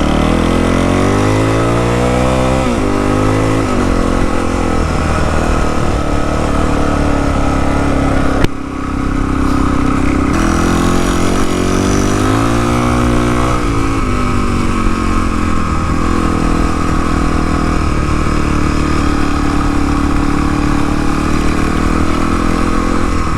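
Suzuki DR-Z400E single-cylinder four-stroke engine breathing through a Lexx slip-on muffler with its quiet-core baffle fitted. It is blipped a few times, rising and falling in pitch, and idles steadily between the blips and through the second half. There is a sharp click about eight seconds in.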